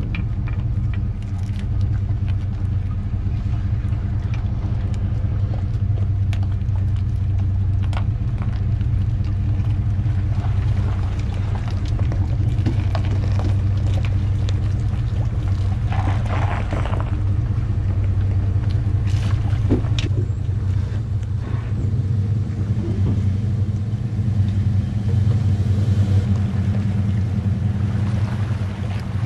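Pickup truck engine running steadily at low speed while reversing a boat trailer down a launch ramp: a low, even rumble with a steady hum. A brief rushing noise comes about halfway through.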